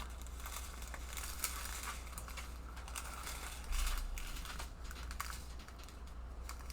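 Plastic packaging of a diamond-painting kit crinkling and rustling as it is handled, with irregular small clicks and one dull thump near the middle.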